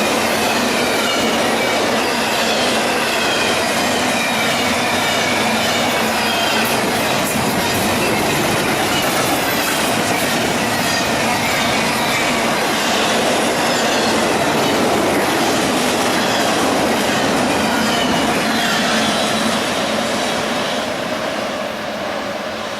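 Freight train cars rolling past on the rails, steady and loud, with wheel squeal heard as high, slowly falling tones. The sound eases a little near the end.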